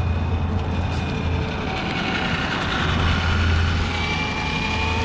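Brushed electric motor and drivetrain of a Traxxas 4-Tec 3.0 '35 Hot Rod Truck RC car whining as it drives on asphalt, the pitch gliding with speed and rising near the end, over a steady low rumble.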